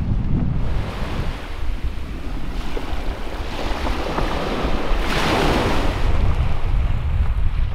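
Small waves washing onto a shingle beach, one swelling into a louder hiss about five seconds in and then fading, with wind buffeting the microphone.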